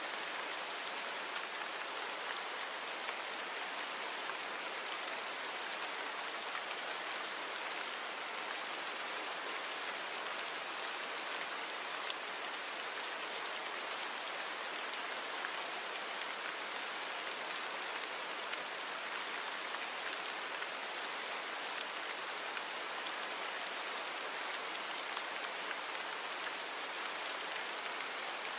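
Steady rain falling: an even, unchanging hiss of many drops, with very little low rumble and a few faint drop ticks standing out.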